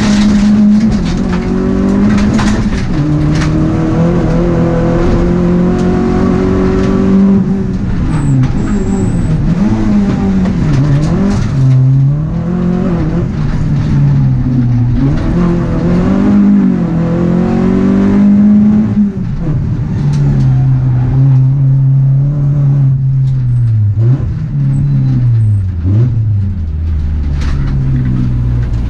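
Rallycross car's engine heard from inside the cabin at racing speed. The revs climb and fall again and again through gear changes and corners, with scattered sharp clicks.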